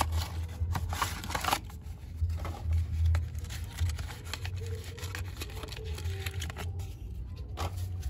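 A cardboard toy box being opened by hand and its card insert slid out: papery rustling, scraping and small clicks, busiest in the first second and a half, over a steady low hum.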